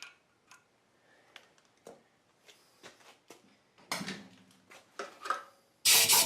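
Light metallic clicks and taps of hand tools being handled on a milling machine table, with a couple of louder knocks, then a sudden loud, fast rattling noise near the end.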